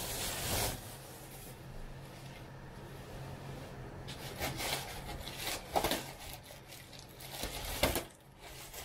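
Plastic bubble wrap and air-cushion packaging rustling and crinkling as it is pulled and handled, in irregular bursts. The loudest come a little before six seconds in and just before the end.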